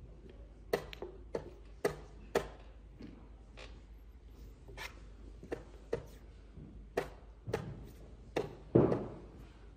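Wooden chess pieces being set down on the board and a chess clock being tapped in quick alternation during blitz play: about a dozen sharp clicks and knocks, irregularly spaced, the heaviest knock near the end.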